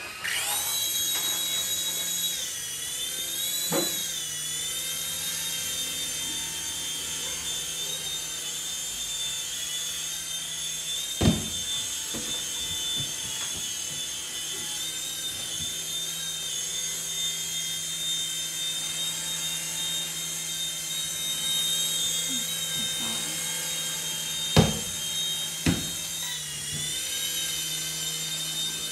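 Toy RC helicopter's small electric motors and rotors whining steadily at a high pitch in flight, the pitch dipping and rising as the throttle changes. Three sharp knocks come partway through.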